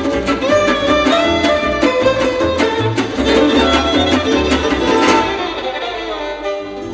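Gypsy-jazz string quintet playing: violin over strummed acoustic rhythm guitar and plucked double bass. About five seconds in the band stops on a final held chord that rings and fades out.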